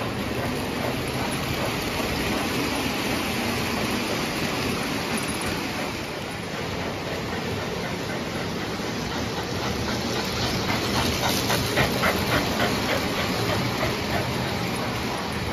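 O gauge model steam locomotive and passenger cars running on tubular three-rail track: a steady rolling noise and hiss, with a run of wheel clicks getting louder from about ten seconds in as the train comes close.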